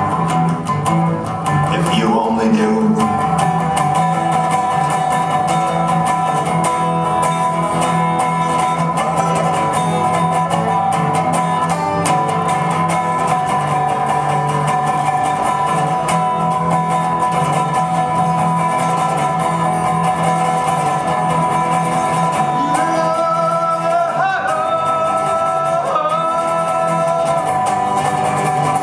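Resonator guitar played in an instrumental passage, with long held notes above a steady low note; from about 23 seconds in the held notes bend and slide in pitch.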